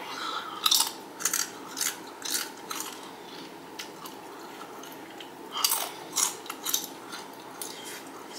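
Close-up crunching of XXtra Flamin Hot Doritos tortilla chips being bitten and chewed: a run of about five sharp crunches roughly half a second apart in the first three seconds, a pause, then another run about five and a half seconds in.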